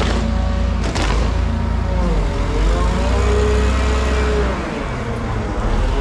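LPG forklift running close by: a steady engine drone with a whine that rises and falls as it moves, and a sharp knock about a second in.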